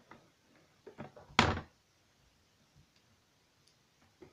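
A single loud thump about a second and a half in, with a few faint handling knocks just before it, as of something knocked against a surface or the microphone.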